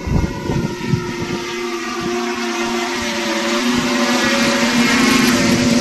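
Wingcopter tilt-rotor drone's electric propellers lifting off, a steady pitched buzzing hum that grows louder as it climbs. Low rumbling gusts sit under it in the first second or so.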